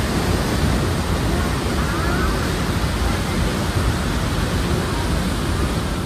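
Steady rushing noise with a churning low rumble as the open car of the 1879 Giessbach funicular runs along its track: wind over the microphone and the car's running noise.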